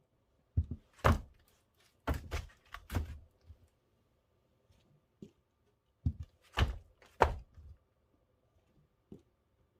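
Split firewood logs being set down and stacked indoors: a series of hollow wooden thunks and knocks in irregular clusters, with pauses between.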